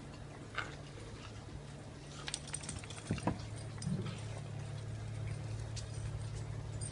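Dogs moving about on a tiled patio: scattered light taps and clicks of claws and paws, over a steady low hum.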